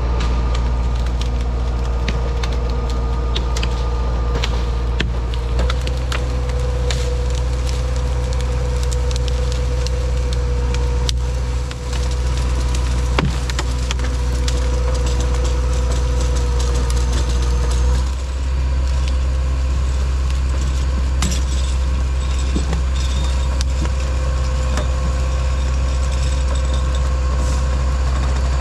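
LKT 81 Turbo skidder's turbo diesel engine running steadily under load as its winch hauls a felled beech log in on the cable, with a steady whine over the engine and scattered cracks and snaps of branches and brush as the log drags along the ground.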